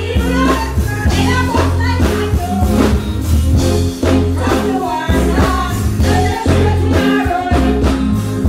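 Live dancehall performance through the stage sound system: a heavy bass-driven backing rhythm with a woman singing and chanting over it into a microphone.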